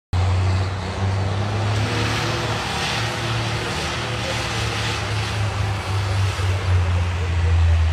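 Diesel farm tractor engine running steadily under load as it pulls a tillage implement through the soil: a low, steady engine drone with a broad hiss over it.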